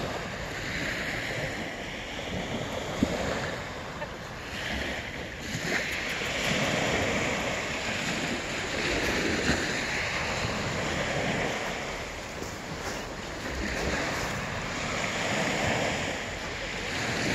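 Small sea waves breaking and washing up a pebble beach, the surf swelling and falling every few seconds.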